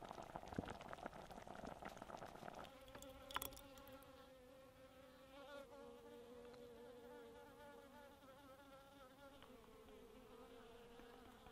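Raspberry jam bubbling at a boil for the first couple of seconds, then a bee buzzing steadily close by, its hum wavering a little in pitch, with one sharp click a few seconds in.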